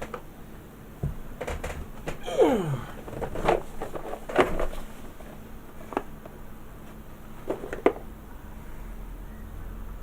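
Scattered light knocks and clicks of small objects being handled and set down on a work desk, with a short squeak falling in pitch about two and a half seconds in.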